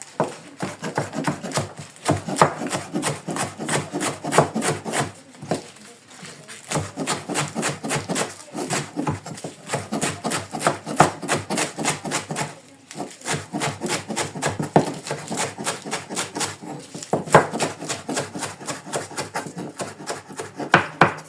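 Knife rapidly chopping callaloo leaves on a cutting board: a fast, regular run of strokes, several a second, broken by two short pauses.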